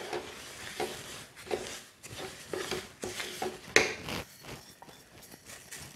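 Wooden spatula stirring roasted sesame seeds into hot jaggery syrup in a nonstick pan: irregular scraping strokes, the loudest a little under four seconds in.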